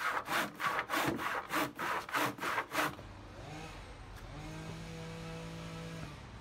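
Handsaw rip-cutting lengthwise through a thick pitch pine beam in even back-and-forth strokes, about three a second, finishing the centre of a cut that a circular saw could not reach. The sawing stops about three seconds in, leaving a low steady hum.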